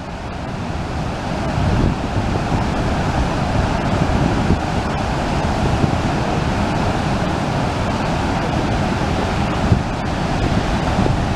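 Steady rush of a waterfall, with wind buffeting the microphone.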